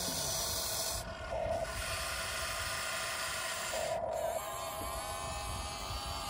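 Small electric motors and gearboxes of a Huina RC construction vehicle whirring, with short runs about a second in and about four seconds in, then a steady whine near the end.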